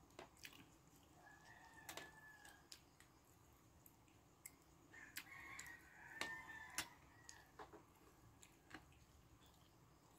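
Quiet eating sounds: a spoon and fork clicking and scraping against a plate. A faint drawn-out call comes twice, about a second in and again around five seconds in.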